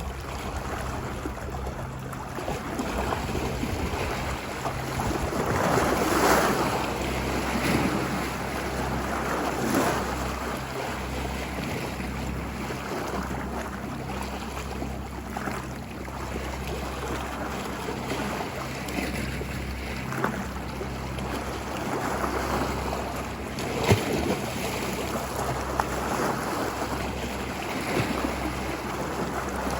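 Ocean waves washing ashore, surf swelling and ebbing every few seconds, with wind rumbling on the microphone and a few short sharp ticks, the sharpest about 24 seconds in.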